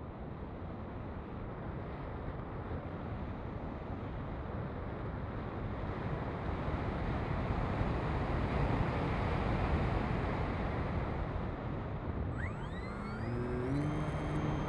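Wind rushing over the plane's onboard camera as the RC plane glides with its folding propeller stopped. About twelve seconds in, the brushless electric motor spins up with a rising whine as the throttle comes on.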